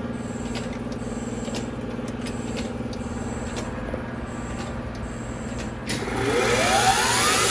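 Heald 273A universal internal grinder running with a steady hum and faint ticking. About six seconds in, a motor on the machine starts and gets louder, its whine rising steadily in pitch as it spins up to speed.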